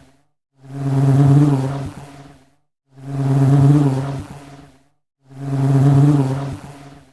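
Honey bee buzzing, a low wavering hum that swells and fades like a fly-past. The same buzz repeats three times about every two seconds, with short silences between.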